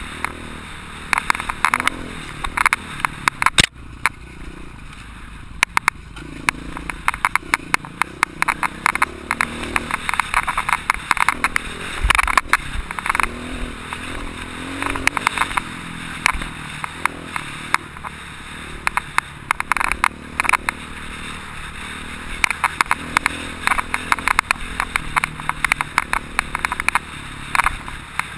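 Off-road motorcycle engine running along a rough dirt track, its revs rising and falling, with frequent sharp rattles and knocks as the bike jolts over the bumps.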